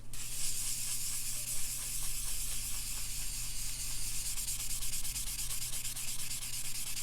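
Abrasive scrubbing sponge rubbed quickly back and forth over a Spyderco ceramic sharpening stone wetted with Barkeeper's Friend paste, a steady scratchy hiss of rapid, even strokes. The stone is being cleaned of its loading (metal clogging its surface).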